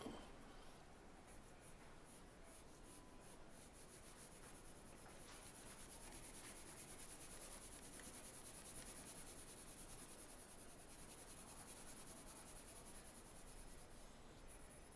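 Faint scratching of a coloured pencil shading on drawing paper, with steady hatching strokes.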